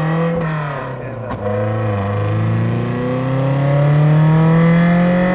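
Lotus Elise's Toyota 1.6-litre four-cylinder engine and exhaust under hard acceleration. The pitch rises, drops back with a gear change about a second and a half in, then climbs steadily through the next gear for several seconds.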